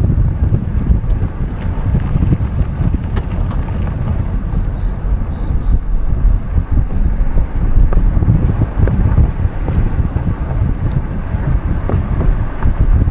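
Wind buffeting the microphone over the steady rumble of a car driving along a road.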